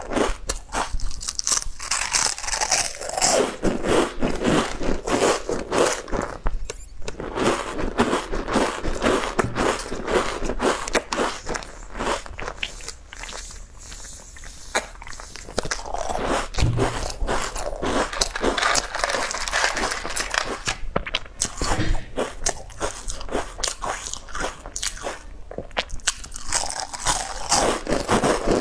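A person biting and chewing crisp crinkle-cut snack crisps close to a lapel microphone: dense sharp crunching and crackling, easing off for a few seconds midway and picking up again.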